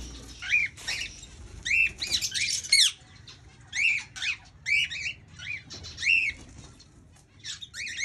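A flock of cockatiels calling: many short, arching whistled squawks in quick runs of two to four.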